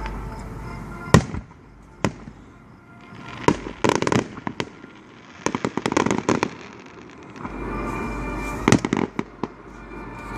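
Aerial fireworks bursting: sharp single bangs about one and two seconds in, then clusters of rapid crackling pops from around the middle onward.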